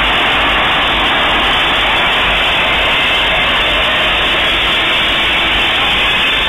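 A festival's stage sound system and crowd heard from the stadium stands as one loud, steady, dull wash of noise, with no clear beat or voice standing out.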